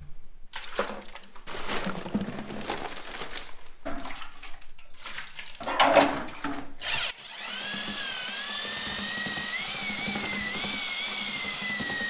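Corded drill with a paddle mixer stirring quick-set joint compound in a bucket. After some irregular handling noise and a knock, the drill starts about seven seconds in and runs steadily. Its motor whine wavers in pitch as the thick mix loads it.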